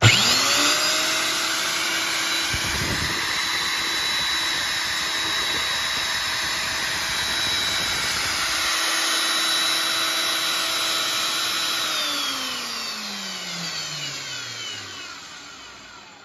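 Husqvarna DMS 240 electric core drill motor switched on, whining up to speed within about half a second and running steadily with no bit fitted. About twelve seconds in it is switched off and winds down with a falling whine.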